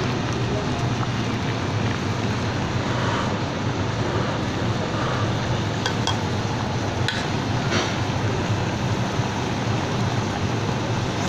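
A steady rushing noise under a pot of simmering curry, with a few light clinks of a metal ladle against the aluminium pot about six to eight seconds in as the curry is stirred and ladled.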